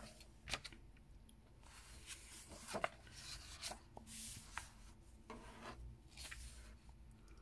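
Quiet rustling of colouring-book paper as a page is turned over and hands brush and smooth it flat, with a few light ticks.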